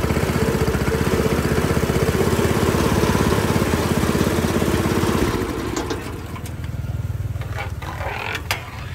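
Small engine driving a sugarcane juice press's rollers runs loud and fast while cane is pressed, then drops to a quieter idle about five seconds in. A few sharp clicks come near the end from the steel juice tray being handled.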